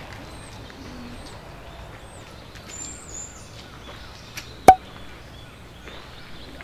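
Faint steady background hiss with scattered high bird chirps, and one sharp, very loud knock about two-thirds of the way through.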